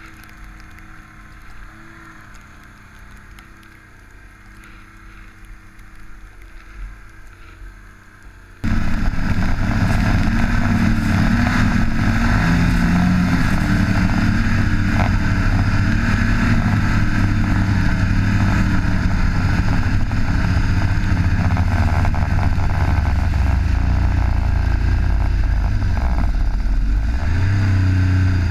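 Snowmobile engine running in deep powder, fairly muted at first. About nine seconds in it turns suddenly much louder and holds a steady high-revving drone with a rushing noise over it.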